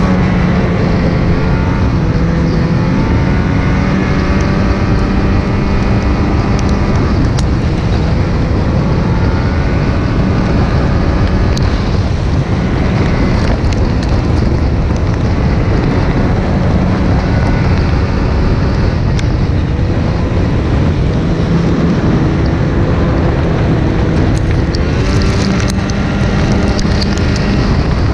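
Snowmobile engine running under steady throttle, heard from the rider's seat with wind on the microphone. The engine note climbs briefly near the end, with a few sharp ticks.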